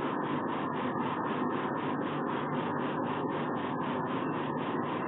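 Steady rushing background noise, even in level, with no distinct calls or knocks.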